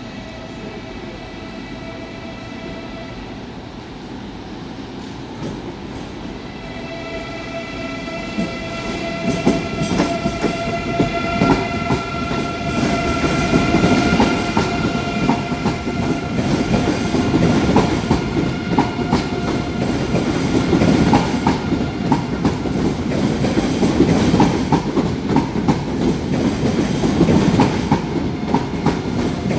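Deutsche Bahn ICE 4 electric train pulling slowly into the station. Steady whining tones are heard at first, then wheels clatter over rail joints and points, growing louder from about ten seconds in as the carriages roll past.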